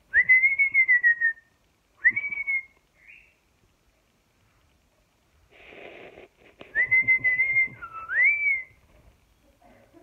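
Whistling: a short tune of clear, high whistled notes in two phrases. The first phrase has a long note and a short rising one. After a breathy rustle, the second phrase has a held note and a last note that dips and then sweeps up.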